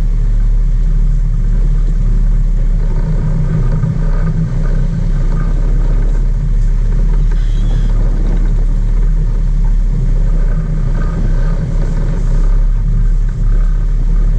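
Sport-fishing boat's engines running under way, a loud, steady low drone.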